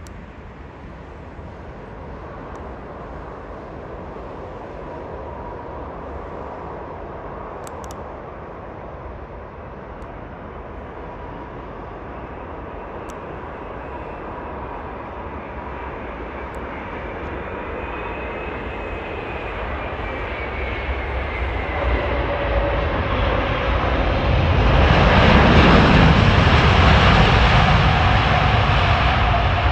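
Airbus A380 on landing approach, its four Engine Alliance GP7200 turbofans whining and rushing, growing steadily louder as the aircraft comes in. The whine falls in pitch around the middle. The sound is loudest over the last five seconds as the jet passes close by at touchdown on the runway.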